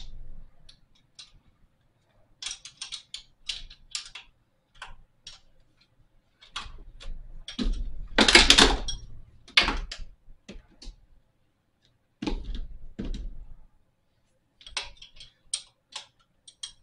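A metal 9/16-inch hand wrench clicking and tapping against nuts and engine parts, then dropped about 8 seconds in: a loud metallic clatter as it falls down through the engine bay, with more knocks a few seconds later and light clicks near the end.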